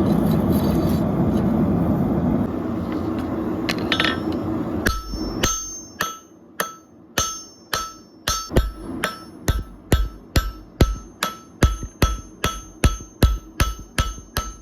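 Steady roaring noise for the first few seconds, then a hammer striking hot steel on an anvil in a steady run of ringing blows, about two a second, drawing out the hoe blade.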